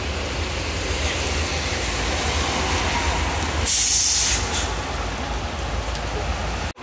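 MAN Lion's City double-decker bus idling with a steady low engine hum. Partway through, a loud hiss of compressed air lasting about half a second comes from the bus's air system, followed by a short second puff.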